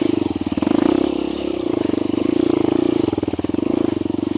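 Honda CRF150 dirt bike's single-cylinder four-stroke engine running steadily, with even exhaust beats.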